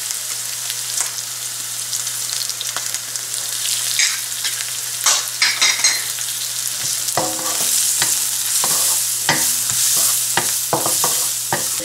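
Chopped onions sizzling in oil in a non-stick wok, a steady hiss. From about seven seconds in, a wooden spatula scrapes and knocks against the pan as the onions are stirred with ginger-garlic powder.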